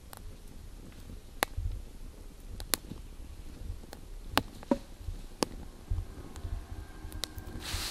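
Wood fire crackling: sharp, irregular pops about once a second over a low rumble, with a brief hiss near the end.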